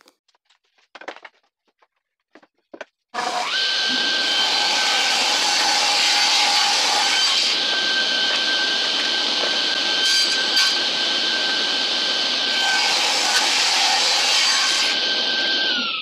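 Table saw switched on about three seconds in, running with a steady high whine while a strip of scrap wood is fed through the blade, then switched off near the end, its pitch falling as the blade spins down. A few faint knocks come before it starts.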